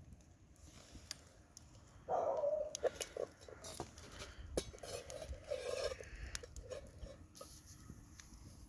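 A metal pan of unpopped popcorn being handled over a campfire: scattered sharp clicks and clinks, with a busier stretch of rattling about two seconds in. The kernels are not popping yet.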